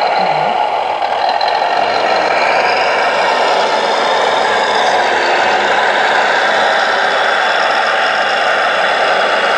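Simulated diesel engine running from the sound module of a 1:14-scale-style RC Volvo L250G wheel loader, steady, along with the model's drive and hydraulics as it reverses and lowers its bucket.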